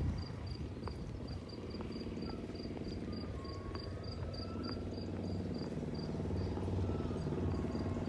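A cricket chirping steadily, about four short high chirps a second, over a low steady hum.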